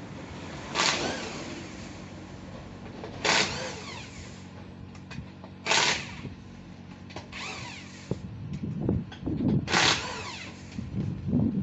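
Impact wrench firing in four short bursts about two and a half seconds apart, as on lug nuts, over a steady low hum, with some lighter clatter later.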